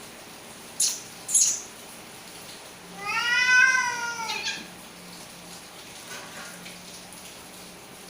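A cat gives two short hisses about a second in, then one drawn-out meow that rises and then falls in pitch, a sound of warning in a standoff between two cats.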